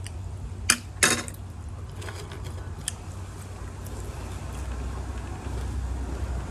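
Eating and handling sounds as fried vegetables are pulled apart by hand and eaten, with two sharp clicks about a second in, over a steady low hum.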